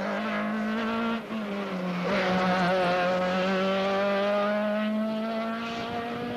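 Rally car engine at high revs, with a brief dip about a second in, then held steady for several seconds, its pitch easing down slightly near the end.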